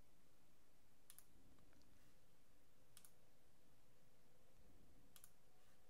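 Near silence with three faint computer mouse clicks, about two seconds apart.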